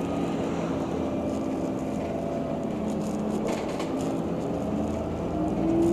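Heuliez GX 137L city bus heard from inside the cabin: a steady engine and drivetrain hum with a few low tones. A louder tone comes in near the end.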